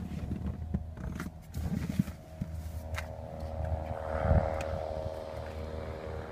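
Folding rear seatback of a 2013 Nissan Maxima being raised back into place and latched: scattered clicks, scrapes and knocks, a sharp click about two seconds in and a heavier thump a little after four seconds, over a steady low hum.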